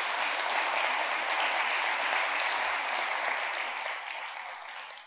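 Conference audience applauding steadily, fading in the last second.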